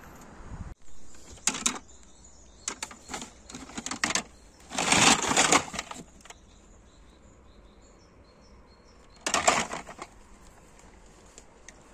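Rummaging through trash: rustling and crinkling of plastic bags and light clatter of plastic items being handled, in short bursts. The loudest burst comes about five seconds in and another just before ten seconds.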